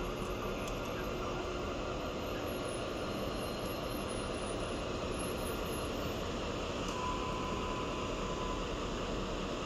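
Pesa Gama SU160 diesel locomotive running steadily at low speed as it creeps in to couple onto the passenger coaches, with a brief faint high tone about seven seconds in.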